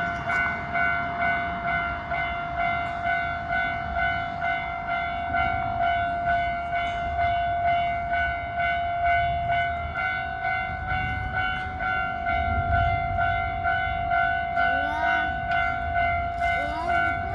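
Japanese railway level crossing's warning bell ringing "kan-kan": one clanging tone repeated at a steady, quick pace, signalling that a train is approaching. A low train rumble swells under it around the middle.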